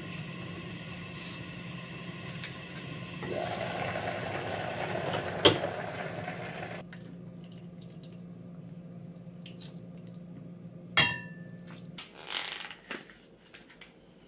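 Noodles lifted from a pot of boiling water on a gas stove, with liquid sloshing and dripping over a steady hum. A sharp clink with a brief ring comes about eleven seconds in, followed by light clicks of chopsticks and dishes.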